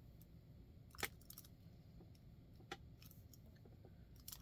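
Faint, scattered metal clicks of a warded pick turning inside a cheap Chinese warded padlock, the sharpest about a second in, another near three seconds and a few close together near the end. The pick is spinning without catching, so the lock does not open.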